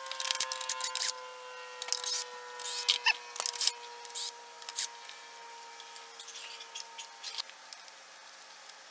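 A cordless drill-driver backs out clutch spring bolts in short runs, among sharp metal clicks of bolts and springs being lifted off the clutch. After about five seconds only faint clinks remain as the clutch plates are handled in the basket.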